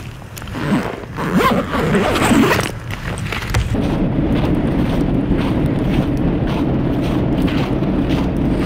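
Jacket fabric rustling and scraping against the camera microphone while walking through snow. From about four seconds in, a steady rush of wind on the microphone takes over.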